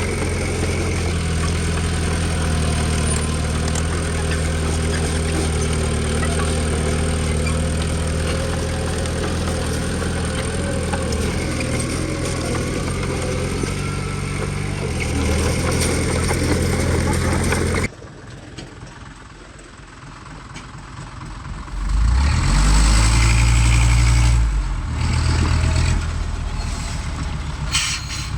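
Heavy diesel earth-moving machine engine running steadily. About two-thirds of the way through the sound cuts off abruptly to a quieter background, then an engine runs up loud and low for a few seconds and settles back.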